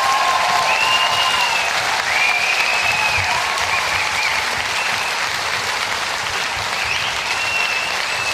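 Audience applauding, steady clapping with several long, high whistles over it as the dancers take their bow.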